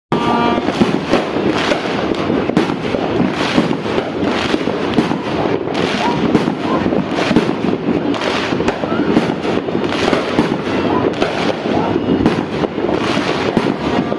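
Many fireworks and firecrackers going off at once, a continuous, dense run of bangs and crackling with no pause.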